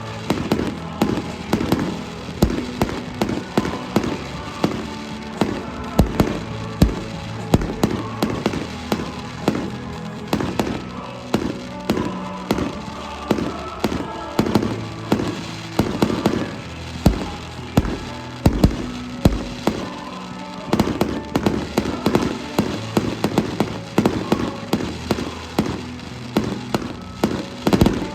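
Fireworks finale: a dense barrage of firework bangs, several a second, with music playing underneath.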